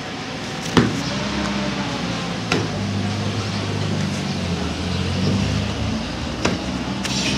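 A steady low engine hum that eases off near the end, with three short sharp knocks a couple of seconds apart.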